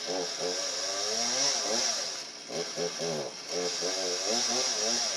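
Chainsaw cutting through the trunk of a tree, its engine pitch rising and falling as the throttle is worked, over a steady high hiss from the chain in the wood. The engine dips briefly a couple of times.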